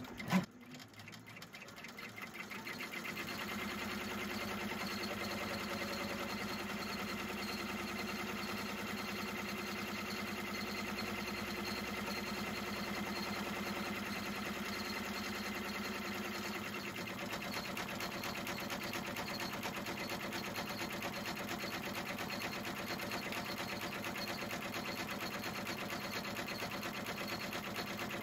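Embroidery machine restarting after being rethreaded: a sharp click about half a second in, then the needle stitching rapidly, speeding up over the first few seconds to a steady, even run.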